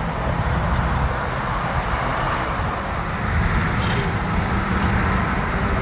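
Tour boat's motor running steadily with wind and water noise as the boat cruises along the canal.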